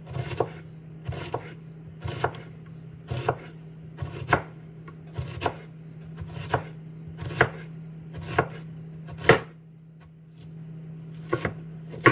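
Chef's knife chopping an onion on a wooden cutting board, the blade knocking on the board about once a second, with a short pause near the end. A steady low hum runs underneath.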